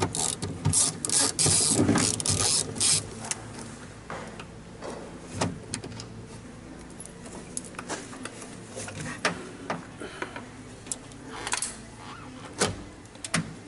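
Clatter and rustling of tools being handled for the first few seconds, then scattered clicks and knocks over a steady low hum.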